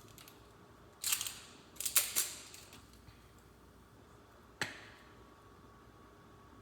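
Short handling noises in a kitchen: a brief scraping rustle about a second in, a quick cluster of sharp clicks and knocks around two seconds, and a single sharp click later.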